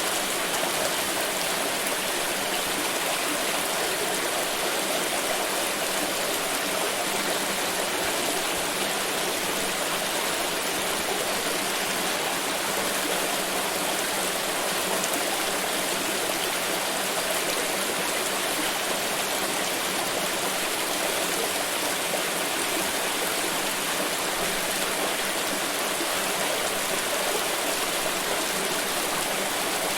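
Flowing stream water running steadily, an even rushing babble with no breaks.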